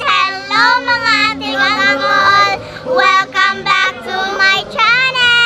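A child singing in a high voice, ending on a long held note.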